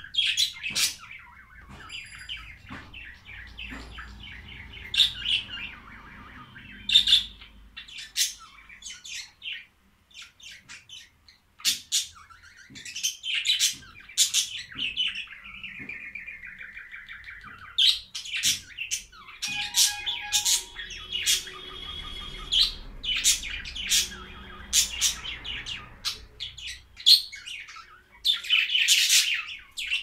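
Budgerigars chattering: sharp chirps mixed with warbling, with a short pause about ten seconds in.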